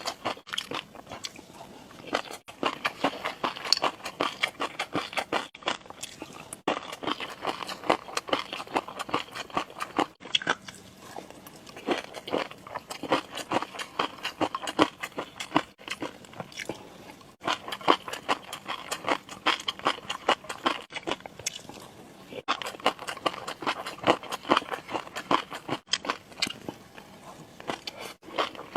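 Close-miked chewing and crunching: rapid crisp bites and mouth clicks, broken by short pauses every few seconds.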